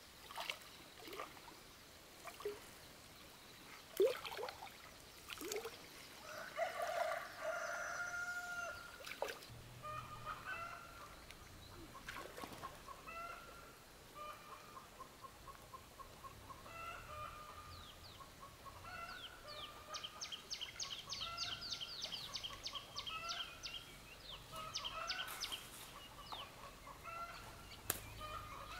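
A rooster crows once, about seven seconds in, and chickens then cluck in short repeated notes. Water splashes and sloshes now and then around someone wading.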